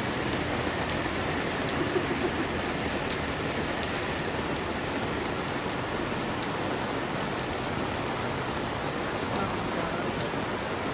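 Heavy rain pouring down onto a paved plaza: a steady hiss with many sharp individual drop ticks.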